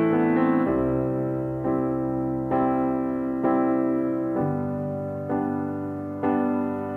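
Background music: slow, gentle piano, notes and chords struck about once a second and left to ring.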